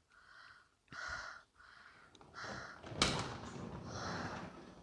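Soft whispering in short breathy phrases, then a sudden thump about three seconds in, followed by a rushing noise.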